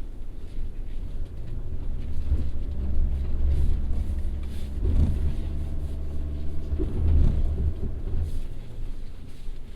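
Subaru Forester e-Boxer hybrid's flat-four engine running under load over a deep rumble, building up after about a second and changing pitch briefly around five and seven seconds in.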